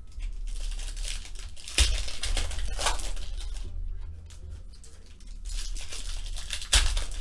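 Foil trading-card packs crinkling and being torn open by hand as the cards are pulled out, with two sharp tears, about two seconds in and near the end, over a low steady hum.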